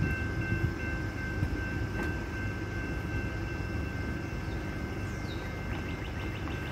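Low steady rumble of an approaching train, with faint steady high-pitched tones over it and a run of quick ticks near the end.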